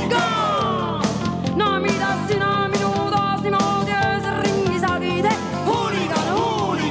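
A pop song with a voice singing sliding phrases over held chords, guitar and a steady drum beat.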